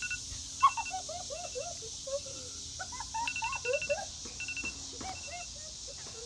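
A woman whimpering in short, high-pitched, rising and falling cries of pain from a burning-hot chilli chip in her mouth, loudest about a second in. Short high beeps come in quick runs at the start and again around the middle, over a steady high hiss.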